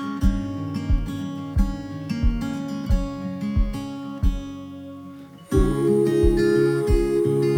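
Background music: upbeat acoustic guitar track with strummed chords and a steady beat, briefly dropping away about five seconds in before coming back fuller and louder.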